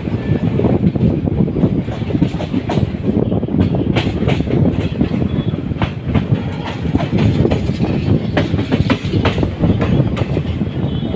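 Passenger train coaches running over the track, heard from the open coach doorway: a steady low rumble with irregular sharp wheel clicks, the clickety-clack over rail joints and the points of a junction yard, most frequent from about four seconds in.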